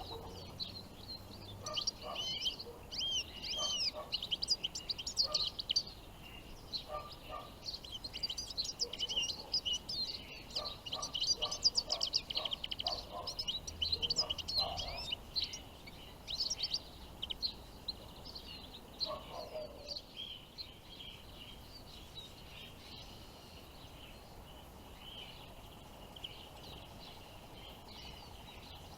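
Caged decoy goldfinch and goldfinch hybrid singing a rapid twittering, chattering finch song, busy for most of the first two-thirds and then dropping to scattered faint notes. The birds are calling as lures to draw wild finches to the traps.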